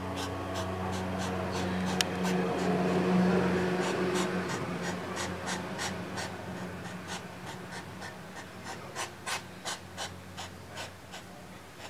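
European hedgehog courting: rhythmic snorting and huffing that swells in the first few seconds, then fades into a run of short, sharp puffs about two a second toward the end. A steady low hum runs underneath.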